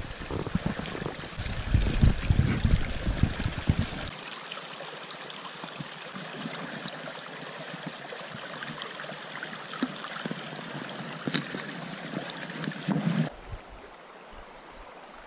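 Shallow brook running over stones, a steady rushing hiss of water. Loud low rumbling bumps sound through the first four seconds, and the water drops to a quieter hiss near the end.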